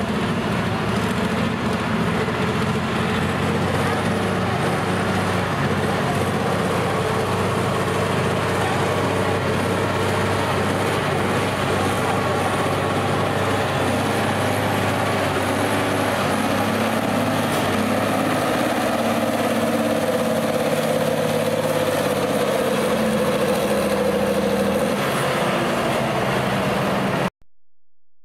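Vintage farm tractor engine running steadily under load as it drags a weight-transfer pulling sled. The sound cuts off suddenly near the end.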